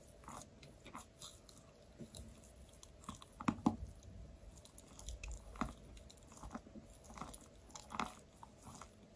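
A mouth biting and chewing a crumbly white piece of chalk, with irregular crunches; the loudest come as a close pair about three and a half seconds in and once more near eight seconds.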